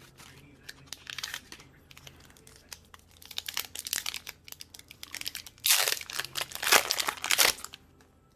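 Foil wrapper of a Pokémon trading-card booster pack crinkling and being torn open, with irregular rustling that is loudest about six to seven and a half seconds in.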